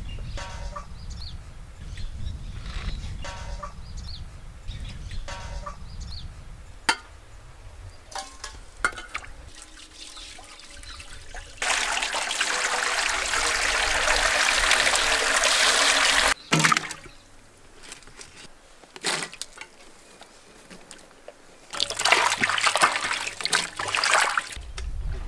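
Water pouring steadily into a metal basin for about five seconds. Later, hands swishing green chillies and tomatoes around in a vessel of water for a couple of seconds.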